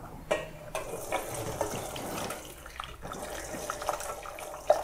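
Homemade chicken broth being strained: liquid pouring and splashing through a slotted spoon into a pot, with a few small knocks.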